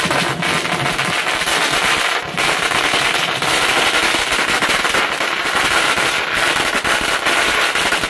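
A long string of firecrackers going off in a rapid, continuous crackle of bangs that cuts off suddenly near the end.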